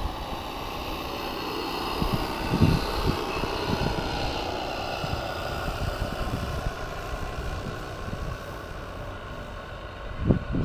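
Hand-made live steam single-cylinder model speed boat running steadily at speed across the water, a continuous buzz, with low gusts of wind on the microphone about two seconds in and near the end.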